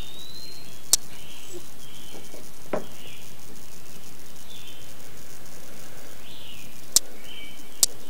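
Steady outdoor woodland background with faint, scattered high chirps of insects and birds. A short falling whistle comes nearly three seconds in, and a few sharp clicks about a second in and near the end.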